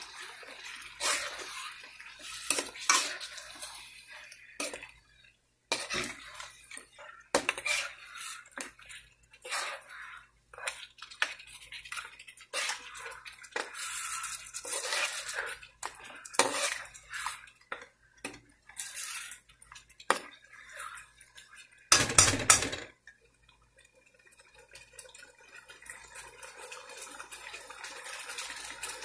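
A metal spoon scraping and clinking against a nonstick karahi as mutton pieces in spice and yoghurt masala are stirred, in many short irregular strokes. About three-quarters of the way through there is one loud bump lasting about a second. After that the stirring stops and the pan gives a soft, steady hiss that grows toward the end.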